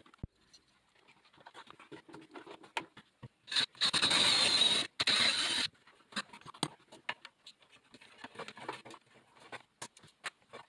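Small clicks and knocks of hand work on a screwed-on electronics box and cable inside a wooden cabinet. About three and a half seconds in, a loud hissing rush lasts roughly two seconds, with one short break.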